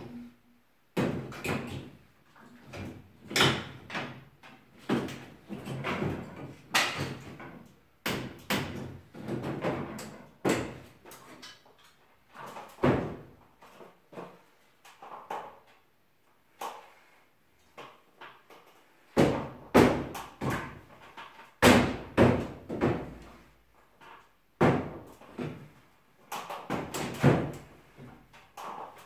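Long steel pry bar knocking and prying at wooden ceiling battens during ceiling demolition, making irregular cracks and thuds of wood being struck and torn loose. The strikes come in uneven clusters with short pauses between them, and a few are louder late in the stretch.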